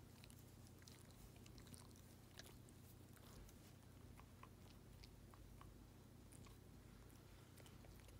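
A dog licking and nibbling at its own paw while grooming: faint, irregular wet clicks and smacks of tongue and teeth.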